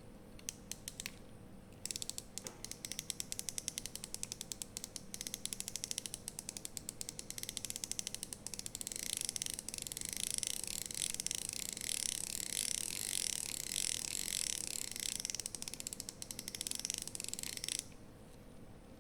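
Baitcasting reel's drag clicker ratcheting as the spool turns against the drag: a few separate clicks, then a steady run of rapid clicks from about two seconds in, becoming a faster, denser buzz of clicks from about nine seconds in that stops abruptly near the end.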